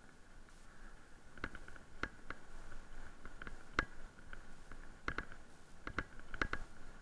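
Electric mountain bike rolling over a rough gravel track, heard from its handlebar-mounted camera: irregular sharp rattles and knocks as the wheels hit bumps, about one every second, over a faint steady high hum.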